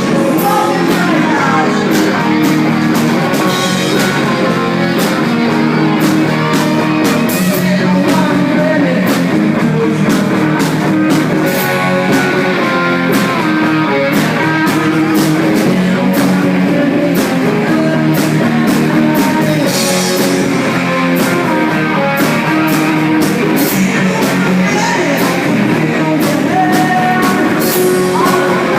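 Background rock song with a sung vocal over electric guitar and a drum kit, at a steady loud level.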